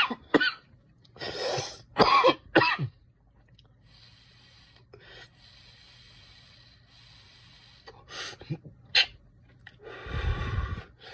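A man coughing in fits after inhaling a dab hit of hash rosin vapour: three harsh coughs close together at the start. A faint steady hiss comes between them and a second run of coughs and throat clearing near the end.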